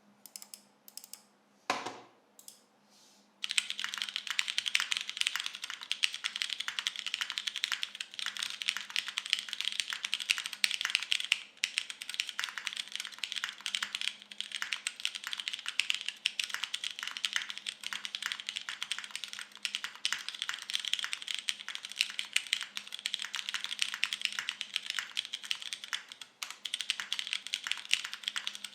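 TGR Jane V2 CE mechanical keyboard being typed on, its lubed Cherry MX Brown tactile switches with 60 g springs under DCS keycaps on a carbon fibre plate. A few single keystrokes, then fast continuous typing from about three seconds in.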